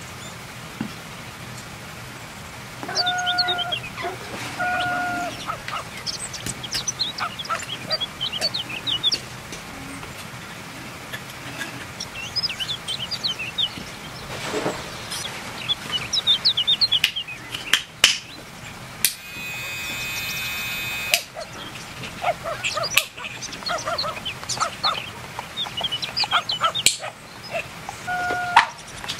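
Birds chirping, with a few short steady-pitched calls near the start and near the end. A steady hiss lasts about two seconds past the middle.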